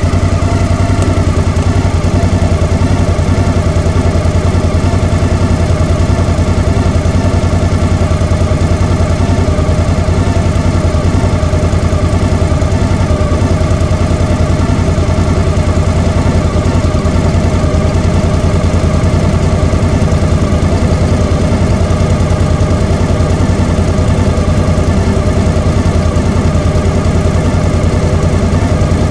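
Motor scooter engines idling while stopped in traffic: a loud, steady low engine hum that does not change.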